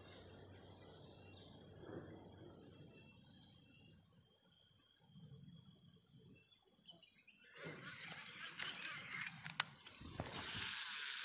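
Faint, steady, high-pitched insect chirring, crickets or similar. From about eight seconds in, a louder burst of noise with a couple of sharp clicks joins it.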